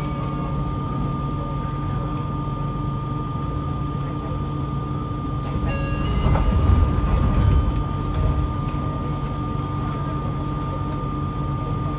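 Interior sound of a 3000A-series subway train: a steady low rumble with steady electrical hums. The rumble swells for a moment about six to seven seconds in, with a click.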